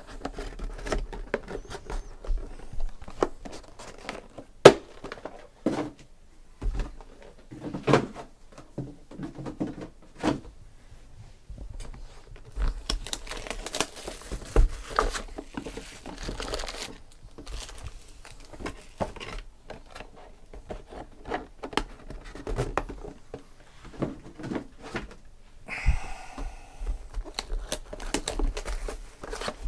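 Hands handling cardboard trading-card hobby boxes and tearing off their plastic shrink-wrap: crinkling of the wrap mixed with taps and knocks of the boxes on the table, with a brief squeaky scrape near the end.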